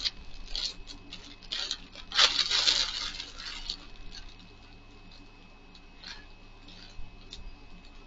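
Clear plastic shipping bag crinkling and rustling as it is opened and a shirt is pulled out. The crinkling is loudest about two seconds in, then fades to soft fabric handling in the second half.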